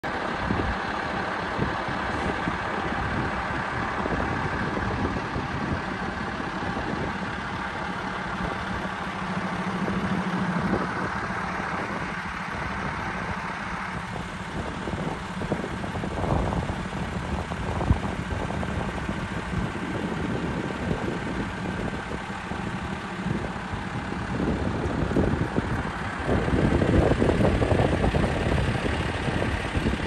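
A vehicle running, a steady rumbling engine-and-road noise that grows louder for a few seconds near the end.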